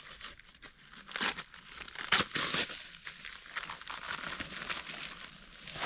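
A run of irregular rough scraping and crinkling strokes, some short and some drawn out, coming every second or so.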